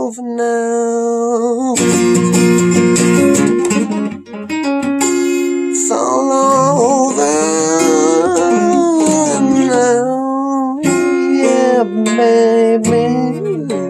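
Acoustic guitar played by hand, mixing strummed chords and picked notes, with a held, wavering note through the middle.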